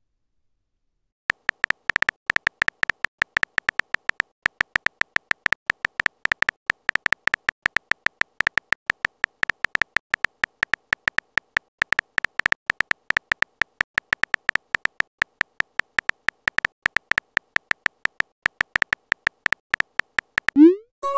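Simulated phone-keyboard typing clicks from a texting app: a long, quick run of short clicks, several a second, one per letter typed, starting about a second in. Near the end comes a short rising swoosh as the message is sent.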